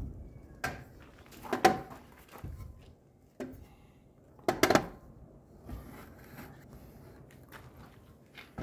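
A few scattered knocks and clunks of things being handled and set down, the loudest about one and a half and four and a half seconds in, with lighter ticks between.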